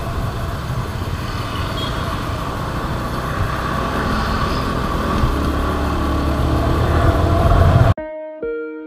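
Riding on a motorcycle: a steady din of engine, wind and road noise with traffic alongside, growing a little louder toward the end. It cuts off suddenly near the end and plucked guitar music takes over.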